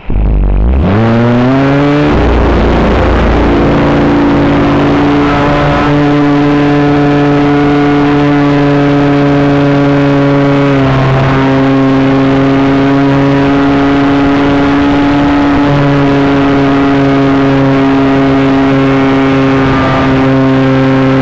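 Model airplane's motor and propeller heard from on board, loud: the pitch rises quickly over the first two seconds as the throttle comes up, then holds a steady hum for the rest of the flight, with a slight change in pitch about halfway.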